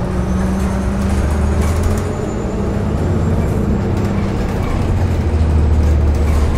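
Interior of a New Flyer XDE40 diesel-electric hybrid bus under way: a steady low hum from the Cummins B6.7 diesel and BAE HybriDrive series-hybrid drive over road and tyre noise. A faint high whine rises in pitch over the first few seconds.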